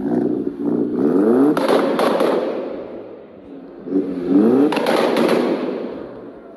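Car engine revved twice, each rev followed by a rapid run of crackles and pops from the exhaust as the throttle is released, dying away over a second or so.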